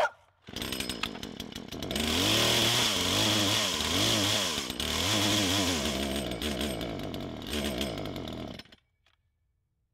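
Poulan Pro PR4218 chainsaw's 42cc two-stroke engine running unloaded, the bar held out of the wood: it runs lower for a second or so, then is revved hard, its pitch rising and falling again and again as the throttle is worked. The sound cuts off abruptly near the end.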